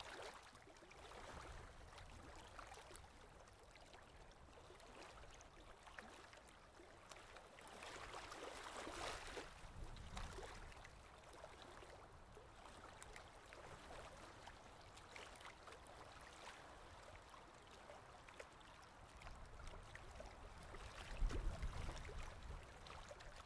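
Faint water swishing past a sailboat's hull, with a soft wash of wind, swelling a little about a third of the way in. A low rumble comes in near the end.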